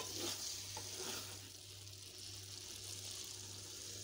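Daal with chicken and green chillies sizzling gently in a metal pan on low heat, a steady faint hiss with a few light ticks in the first second.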